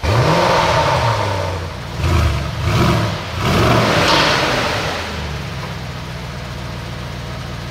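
Mercedes-AMG GLE 63 S twin-turbo V8 revved in several quick blips, each rising and falling in pitch, then settling into a steady idle for the last few seconds.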